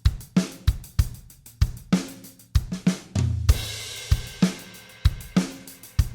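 Music with a steady drum-kit beat of kick, snare and hi-hat hits, with a cymbal crash about three and a half seconds in.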